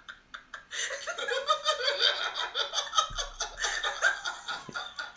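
A man laughing in repeated short bursts, starting about a second in.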